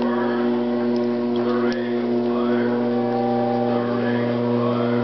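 Electric potter's wheel running with a steady motor hum, and a faint swish repeating about once a second.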